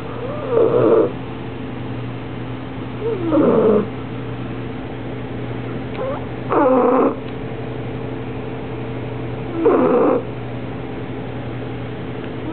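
Six-month-old bulldog puppy snoring softly in her sleep, one short rasping snore about every three seconds.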